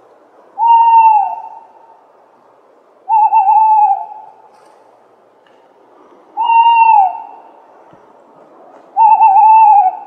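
Tawny owl hooting: four calls about three seconds apart, each just under a second long. Two hold and then drop in pitch, and the other two waver. A steady low hiss runs underneath.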